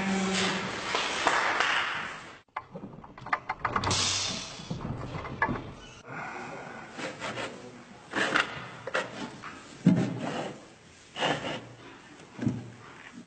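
Metal clanks and knocks from the aluminium gate of a sheep handling crate being moved and latched into its catch positions: a string of separate clanks about a second apart, after a busier stretch of rattling at the start.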